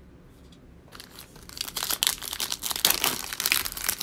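Foil trading-card pack being torn open and crinkled in the hands: a dense crackling that starts about a second in and quickly grows loud.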